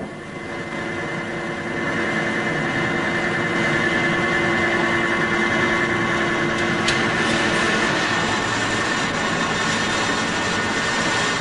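Metal lathe running and cutting a workpiece turned against a dead center packed with grease: a steady machine sound with a thin held whine, building up over the first couple of seconds. One sharp click partway through.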